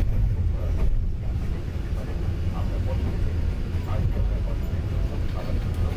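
Train running along the track: a steady low rumble with faint knocks.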